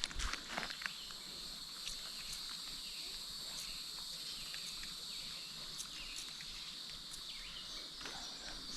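Steady insect chorus: an even, high-pitched buzzing that holds without a break, with a few faint clicks.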